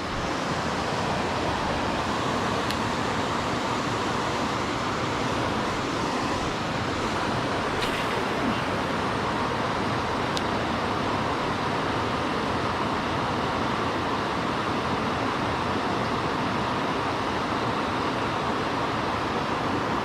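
Steady rushing of river water, an even roar with no change in level, with a few faint clicks.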